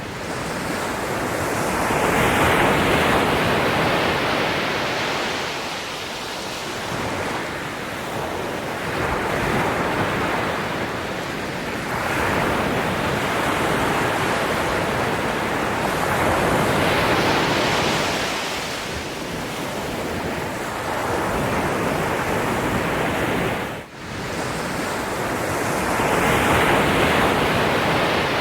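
Ocean waves breaking and washing onto a shore, a steady surf that swells and ebbs every few seconds. There is a brief dropout in the sound near the end.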